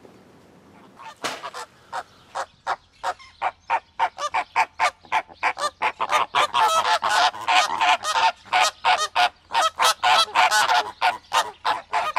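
A rapid series of short honking calls, about four or five a second, starting about a second in and growing louder past the middle.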